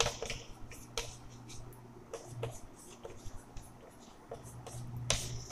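Chalk writing on a chalkboard: an irregular run of short taps and scratchy strokes as letters are written by hand.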